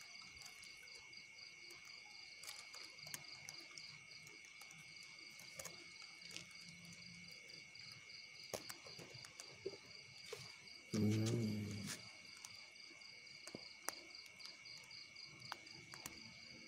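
A steady chorus of crickets with a pulsing trill, over scattered light clicks and knocks from a fishing rod and spinning reel being handled. About eleven seconds in, a louder low-pitched hum-like sound lasts about a second.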